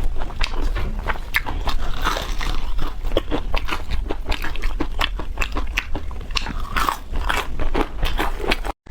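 Close-miked eating sounds: a person biting and chewing chicken, with many rapid crunchy, crackling bites and wet chewing. The sound cuts out abruptly for a moment near the end.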